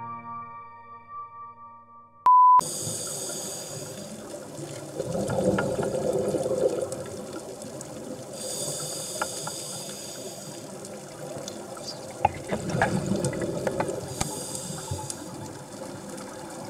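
Scuba diver breathing through a regulator underwater: hissing inhalations alternate with bubbling, gurgling exhalations, about two breaths. Before that, soft piano music fades out and a short, loud single-pitch beep sounds about two seconds in.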